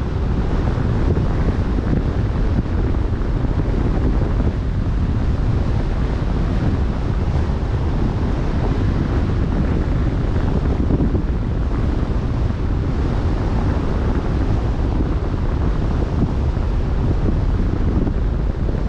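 Wind blowing on the microphone with a steady low rumble, over the wash of waves on the open sea.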